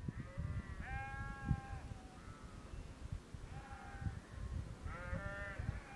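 A flock of sheep bleating, about five calls, the longest about a second in and several overlapping near the end, over a low irregular rumble.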